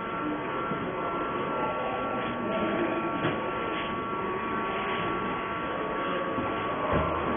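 Metro train noise in an underground station: a steady rumble and hiss with several constant tones held underneath.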